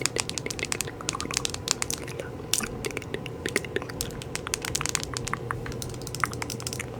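Rapid, irregular crisp clicks and crackles close to the microphone, many per second, like tapping or crinkling used as an ASMR trigger.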